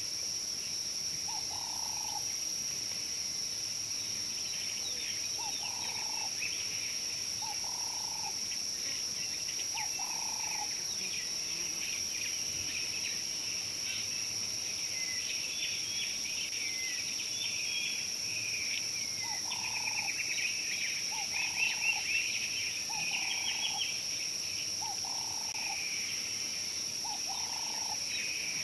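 Outdoor African bush ambience: a steady high insect drone, with bird chirping. A short mid-pitched call note repeats about every two seconds, in two runs, one at the start and one from a little past the middle to the end.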